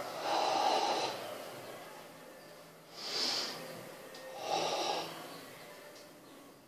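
Karateka's heavy, forceful breathing while performing the Goju Ryu kata Tensho, the tensed ibuki-style breathing of the form: three loud hissing breaths, one at the start, one about three seconds in and one about four and a half seconds in.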